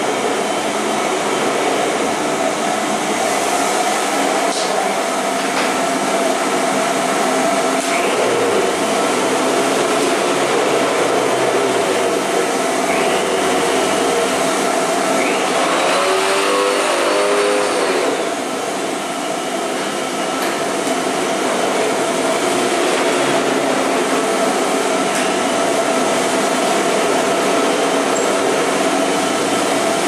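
Vacuum cleaner running steadily: continuous rushing air noise with a steady motor hum. A brief faint pitched sound comes through a little past halfway, and the level dips slightly just after.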